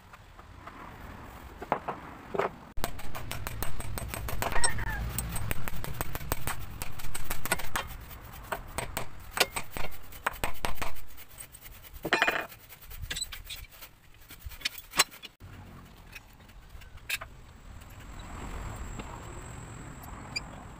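Steel bar clamps being handled and set on a wooden sofa frame: a dense run of metallic clinks and rattles from about three seconds in, stopping a few seconds before the end.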